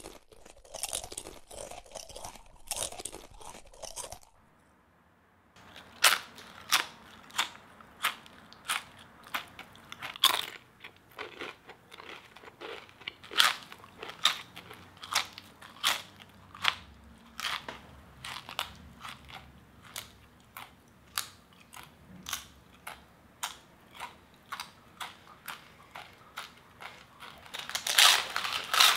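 Chips being bitten and chewed close to the microphone: sharp, loud crunches about one to two a second, coming thicker and louder near the end. The crunching starts about six seconds in, after a few seconds of a denser crackly sound and a brief pause.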